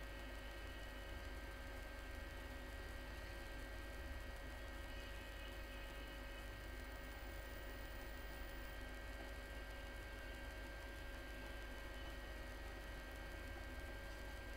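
Steady low electrical hum with faint hiss and a few thin steady tones, unchanging throughout.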